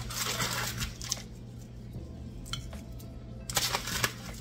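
Crackers being crushed by hand and crumbled over a dish of casserole, in two bursts of crunching: one lasting about a second at the start and a shorter one near the end.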